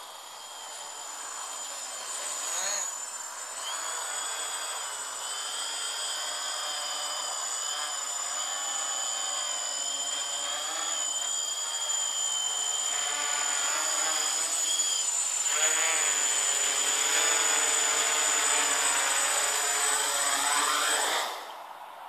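Gaui 330X-S quadcopter's four electric motors and propellers buzzing, with a steady high whine over them. The sound grows louder as it comes in close and hovers low over the grass, and its pitch wavers up and down as the throttle is adjusted. The motors stop abruptly near the end as it sits on the grass.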